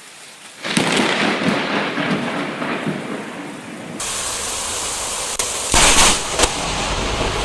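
Thunder from a close lightning strike in a rainstorm: a sudden loud crack about a second in that rolls on, with rain falling. Another loud crack comes about six seconds in.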